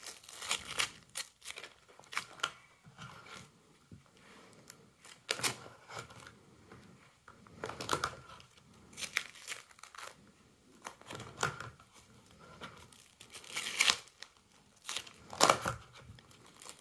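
Plastic binder sleeve pages crinkling and rustling as they are turned, in irregular sharp rustles every one to three seconds.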